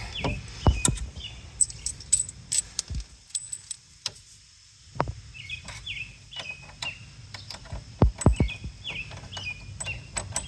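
Metal hardware clinking, with scattered knocks, as a bolt, washer and nut are worked by hand on a plastic floating dock's bunk. A bird chirps in short repeated notes in the background.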